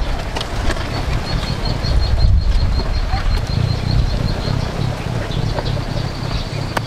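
Wind rumbling on the microphone, with a fast high chirping at about five pulses a second running over it from about a second in.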